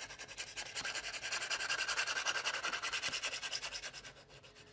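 Small hand file rubbed quickly back and forth along the cut edge of a plastic model-kit wall part, about eight short scraping strokes a second, filing the cut edge straight. The strokes fade out near the end.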